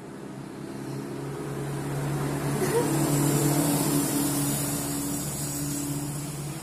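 A motor vehicle's engine running steadily, growing louder over the first few seconds and then easing off, as a vehicle passes.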